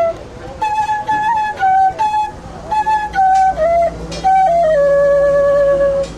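Bamboo flute (basi/bansuri) playing a slow melody in short breathy phrases that step downward, ending on a long held low note near the end.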